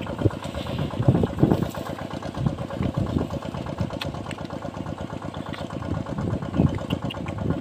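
Small engine running steadily with a fast, even beat: the motor of a water pump draining the field.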